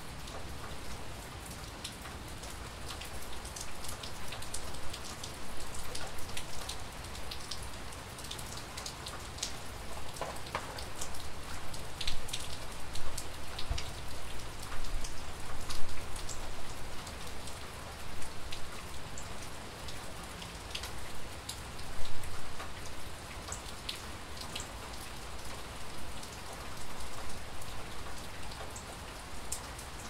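Steady rainfall with many sharp individual drop ticks scattered through it.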